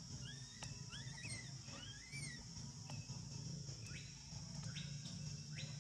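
Outdoor animal ambience: a steady high insect drone, with a run of short rising chirping calls in the first half and a few more sharp chirps near the end.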